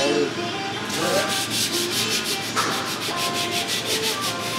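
Steel barbell shaft being sanded by hand with abrasive: quick back-and-forth rubbing strokes, about five a second, settling into a steady rhythm about a second in.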